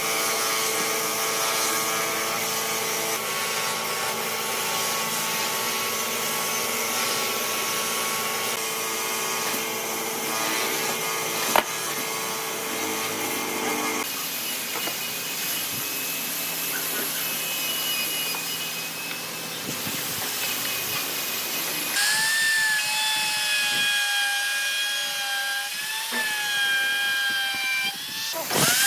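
Workshop power tools cutting wood across several edited shots: a steady machine hum for about the first half, with one sharp knock partway through, then a noisier stretch. In the last quarter comes the high whine of an electric router cutting along a curved hardwood frame, its pitch dipping briefly as the bit bites.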